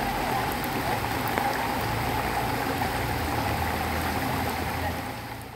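Steady rush of flowing floodwater, with a faint low hum underneath, fading out near the end.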